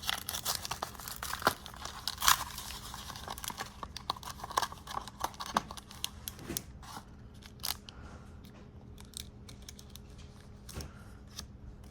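A plastic blister pack and its cardboard backing being torn and crinkled open by hand: a run of crackles, tears and crunches, busiest in the first few seconds, then sparser handling clicks.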